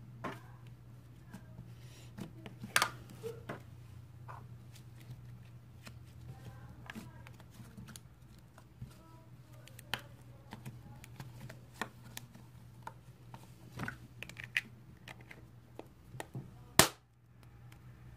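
Scattered clicks and taps of plastic slime eggs being handled and snapped open, with one sharp snap near the end, over a steady low hum.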